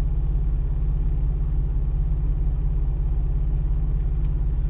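Jeep's engine idling, a steady low rumble heard from inside the cabin.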